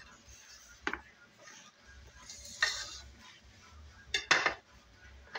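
A kitchen knife and dishes knocking and clattering as green plantains are peeled and sliced: a few separate sharp knocks, a short scrape near the middle, and the loudest double clatter about four seconds in.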